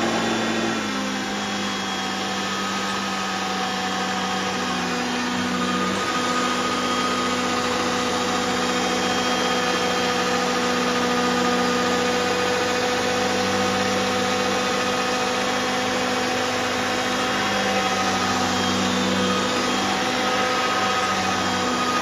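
Hoover Concept One upright vacuum cleaner running on speed setting three while it picks up spilled loose tobacco from a rug. Its steady motor hum drops slightly in pitch about a second in and wavers a few times as the nozzle moves over the spill.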